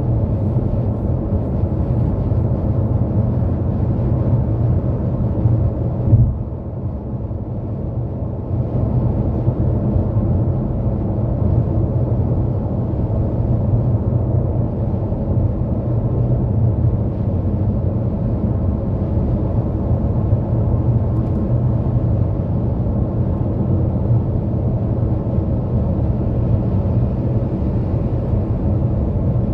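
Steady road and tyre noise of a car cruising on an interstate highway. About six seconds in there is one sharp bump, followed by a couple of seconds of quieter, smoother running before the rumble returns.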